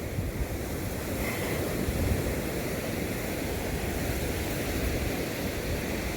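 Ocean waves breaking and washing on a sandy beach, a steady rush of surf.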